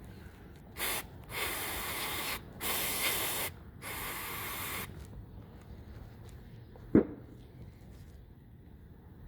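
CRC Electronic Cleaner aerosol spraying in hissing bursts, a short one and then three of about a second each, to clean the temperature blend door actuator. A single sharp knock follows about seven seconds in.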